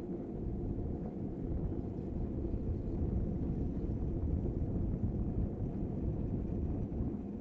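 Downhill gravity kart, which has no engine, rolling on an asphalt track: a steady low rumble of its wheels on the road surface, heard through a camera mounted on the kart.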